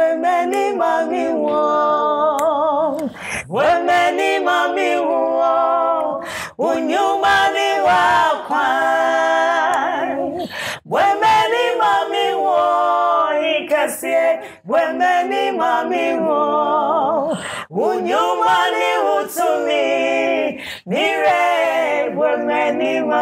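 Women's voices singing a gospel song together, unaccompanied, in long held phrases with short breaks between them.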